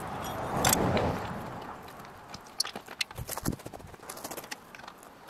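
Footsteps on gravel: a series of short irregular taps, with rustling and one sharp knock in the first second or so.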